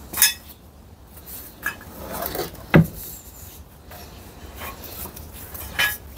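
A handful of sharp knocks and clinks of hard parts being handled, with rubbing between them and one heavier thud about three seconds in.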